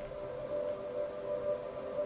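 Soft ambient background music: a few sustained tones held steadily, like a drone pad.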